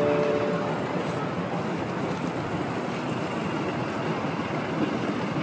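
Steady city street noise: road traffic and a crowd of pedestrians, an even rumble with no single event standing out.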